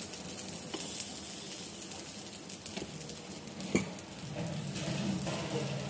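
Ghee and batter sizzling in a hot appe pan as spoonfuls of batter are dropped into its cups, with a few light clicks of the spoon on the pan, the sharpest almost four seconds in.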